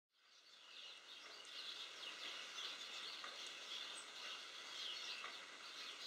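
Small birds chirping and twittering in short repeated notes over a steady hiss of rain, fading in over the first second.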